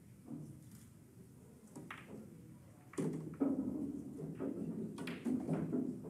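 A pool shot: a cue strikes the cue ball and billiard balls click against each other on the table, with a sharp knock about three seconds in and more clicks near the end.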